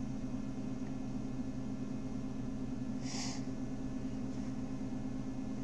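Steady low background hum, with one brief hiss a little over three seconds in.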